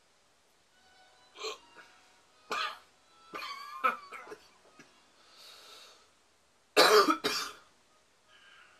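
A man coughing and clearing his throat after a swig of beer, with shorter throaty sounds in the first half and two loud coughs close together near the end.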